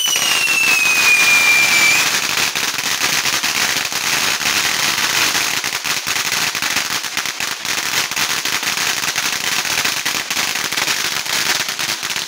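Ground-level firework fountain hissing and crackling densely as it throws sparks. A whistling tone falls in pitch and stops about two seconds in. The shots went off on the ground instead of flying up into the sky.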